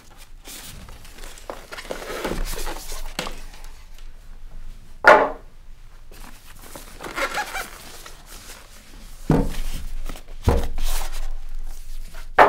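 Packing being pulled off a boxed subwoofer: polystyrene foam end pieces lifted away and set down with a few sharp knocks, the loudest about five seconds in, with the plastic wrap rustling in between.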